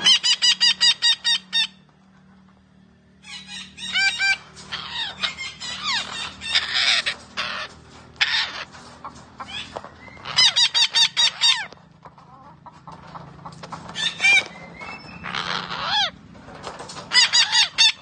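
Red-breasted parakeet calling: loud runs of quickly repeated notes, about five a second, at the start, about ten seconds in and near the end, with varied, sliding calls in between.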